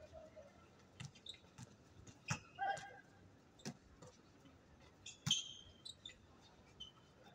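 Basketball game on an outdoor court: a basketball bouncing in sharp single thuds spaced a second or so apart, with short squeaks from the players' sneakers and brief calls from the players. The loudest bang, a sharp hit with a squeak after it, comes about five seconds in.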